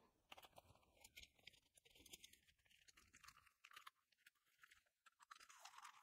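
Near silence with faint, scattered small clicks and rustles: photocards and plastic binder sleeves being handled.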